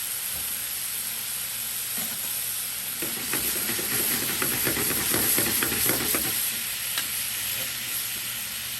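Chicken and sauce sizzling steadily in a frying pan on the stove, with a louder stretch of quick scrapes and knocks from about three to six seconds in as a utensil works in the pan.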